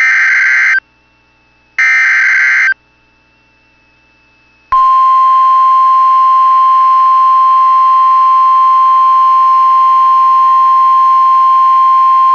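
Emergency Alert System header on NOAA Weather Radio: two short data bursts about a second long and a second apart, the end of the three-burst SAME header encoding a Severe Thunderstorm Watch. About five seconds in, the long steady 1050 Hz warning alarm tone begins.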